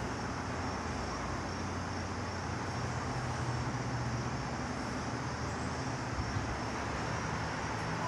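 Steady outdoor background noise with a low hum, and a light knock about six seconds in.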